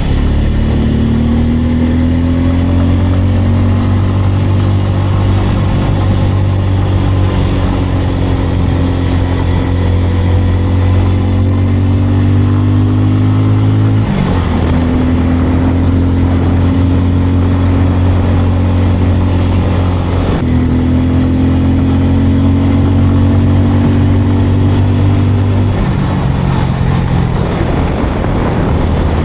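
Bajaj Pulsar N250's single-cylinder engine running under way at steady revs. Its note breaks off briefly twice around the middle, then settles to lower revs near the end.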